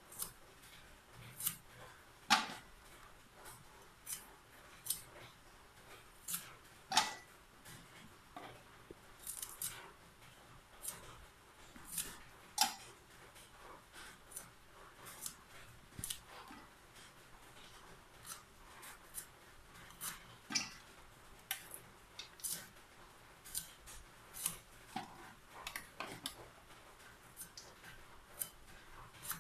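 A knife cutting raw bitter gourd (karela) into chunks: a string of short, sharp cuts at an uneven pace, about one every second or two.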